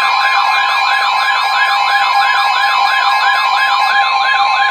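Emergency alert attention signal: steady alarm tones under a fast warbling siren that sweeps up and down about four times a second. It is the alert signal ahead of a broadcast tornado warning.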